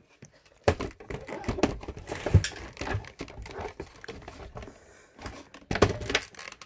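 Handling noise: irregular knocks, rubs and light plastic clatter as a hand-held phone is moved about and a plastic Beyblade stadium is handled. The loudest knocks come a little past two seconds in and near the end.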